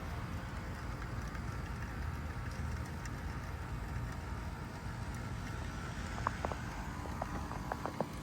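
Outdoor unit of a 4-ton Carrier Comfort Series heat pump running through a defrost cycle: a steady low hum. A few faint ticks come in the last couple of seconds.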